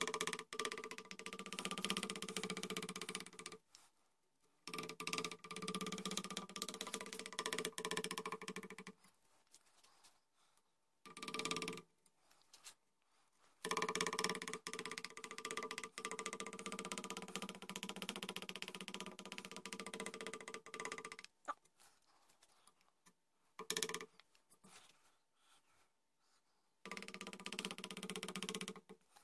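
A hand carving tool scraping and paring the wooden gunstock in several stretches of a few seconds each, with short pauses between them.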